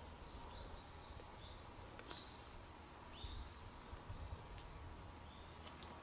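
Insects calling steadily: one continuous high-pitched trill, with a few faint short chirps beneath it.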